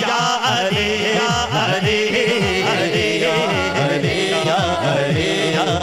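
Devotional kalam: a man singing a drawn-out, wavering melody through a microphone and sound system, over a steady beat of low drum strokes.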